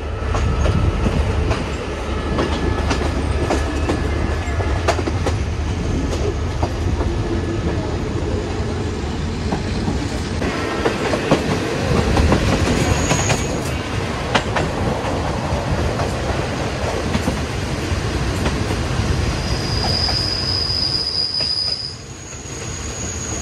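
A train rolling on the rails: a steady low rumble with the clack of wheels over rail joints. Brief high-pitched wheel squeals come about halfway through and again near the end.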